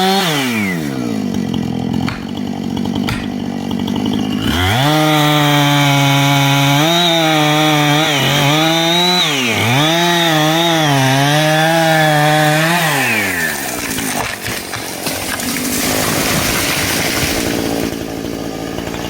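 Two-stroke chainsaw engine revved up to high speed about four seconds in. It is held near full throttle with pitch dips as the chain bogs in the wood, then drops back around thirteen seconds. The saw winds down at the very start, and a steady noisy rush follows the cut.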